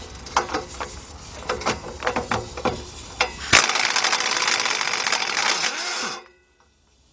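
Scattered clicks and knocks of a socket being worked onto a bolt, then about two and a half seconds of a power wrench's rapid rattling as it spins the bolt off, stopping abruptly.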